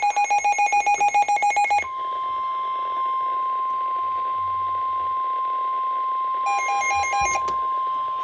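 Rapid electronic alert beeping for about two seconds, then the NOAA Weather Radio warning alarm tone: one long, steady, single-pitched tone. A second short burst of rapid beeping comes over the tone about six and a half seconds in.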